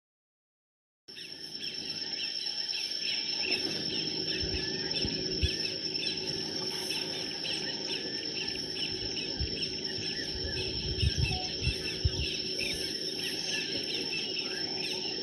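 Field recording of the bush: a steady high insect drone with many short bird chirps over it, starting about a second in, and a few low thumps in the middle.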